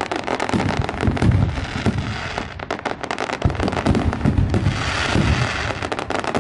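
A barrage of aerial fireworks: a dense, unbroken crackle of many small pops from crackling stars, with repeated low bangs of shells bursting about once a second.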